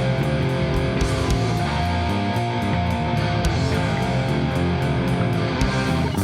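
A rock band playing an instrumental passage, led by distorted electric guitar over bass and drums.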